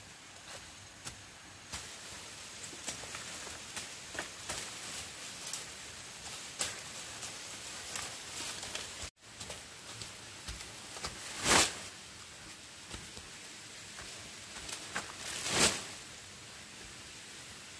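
Rustling with scattered light clicks and knocks, as of someone handling things or moving through brush. Two louder brushing swishes stand out, a little under halfway through the second half and again near the end, and the sound drops out briefly near the middle.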